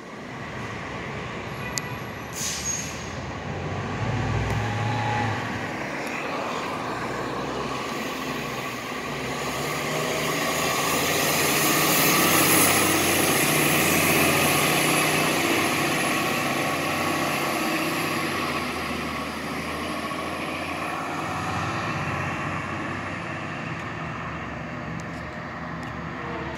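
City transit bus pulling away and driving past, its engine running steadily and growing louder as it passes close about halfway through, then fading off.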